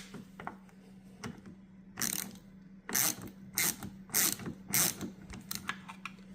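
Ratchet wrench with a T20 Torx bit clicking in short strokes, about five, as the lock cylinder's retaining bolt is tightened clockwise.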